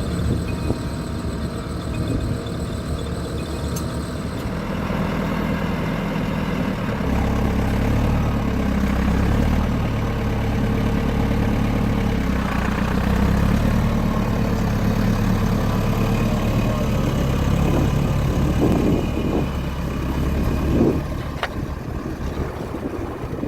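Vintage tractor engine running steadily as it pulls a plough through mud, growing louder through the middle and dropping away near the end.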